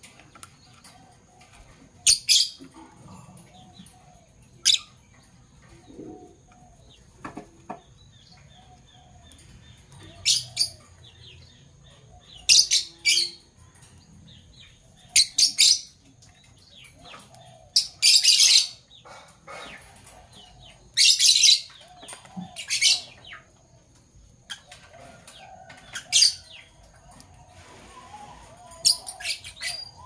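Fischer's lovebirds giving short, shrill chirps, singly and in quick clusters, every few seconds.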